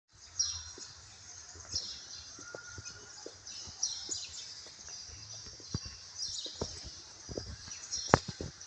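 High-pitched chirping animal calls, short falling sweeps repeating roughly once a second, with scattered small clicks and one sharp click near the end as the loudest sound.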